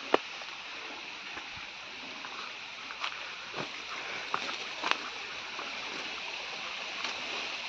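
Steady rush of a rocky mountain stream below a waterfall, with a few sharp snaps of footsteps on brush and stones, the loudest a little before the five-second mark.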